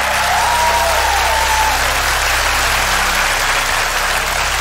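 Studio audience applauding steadily. A short higher tone glides up and then holds over the clapping in the first second or two.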